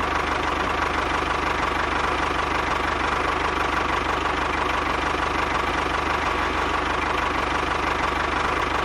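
Small motor of a DIY model construction machine running steadily, with a fast, even rattle and a steady whine.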